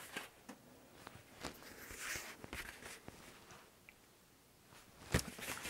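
Faint rustling and light taps of a cardboard LP jacket being handled and turned over, with a sharper knock about five seconds in.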